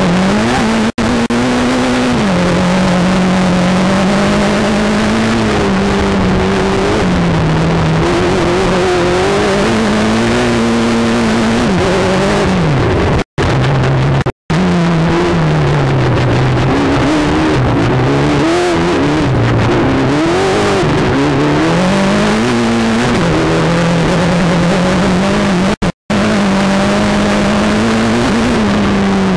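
Mitsubishi Evo turbocharged four-cylinder engine racing hard through a six-speed sequential gearbox, heard from inside the car: engine pitch climbs and drops again and again with gear changes and lifts, over steady road and wind noise. The sound cuts out briefly three or four times.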